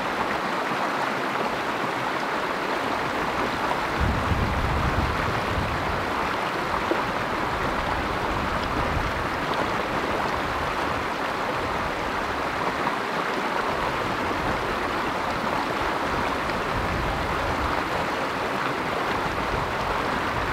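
Shallow rocky creek rushing and splashing over stones, a steady water noise, with a brief low rumble about four seconds in.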